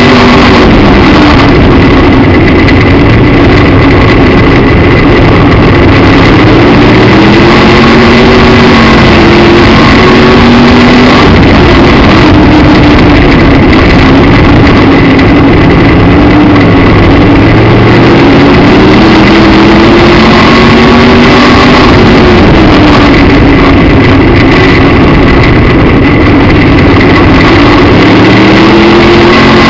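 Midwest Modified (B-Mod) dirt-track race car's V8 engine, heard from inside the car and loud enough to overload the camera. Its pitch rises and falls several times as the driver gets on and off the throttle around the track.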